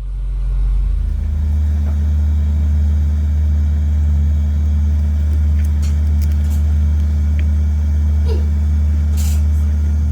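A steady, deep droning hum of several low tones held together, starting suddenly, with a few faint ticks over it.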